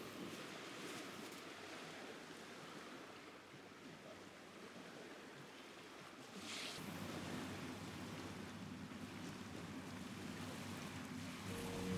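Faint, steady wash of small waves on a sandy beach, with a light breeze; a brief hiss about six and a half seconds in.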